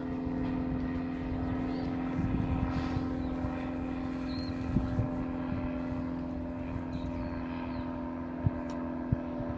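Propeller airplane engine running with a steady, unchanging hum.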